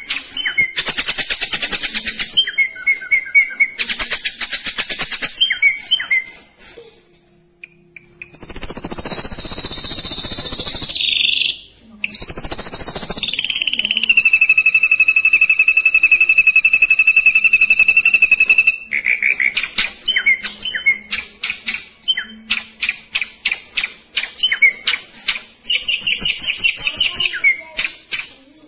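Ashy drongo singing: fast, tightly packed runs of sharp high notes, a brief lull about seven seconds in, then loud ringing high notes that slide down into a long steady high note held about five seconds, after which the rapid runs return.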